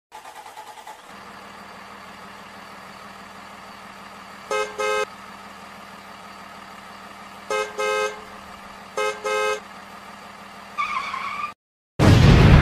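Cartoon truck sound effects: an engine running steadily, with three double honks of a vehicle horn spaced a few seconds apart. Near the end a brief wavering tone plays, then a loud explosion blast starts suddenly after a moment's silence.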